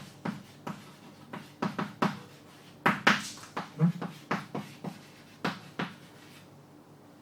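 A run of sharp knocks and taps, two or three a second at an uneven pace, one with a brief scraping smear about three seconds in; they stop about six seconds in.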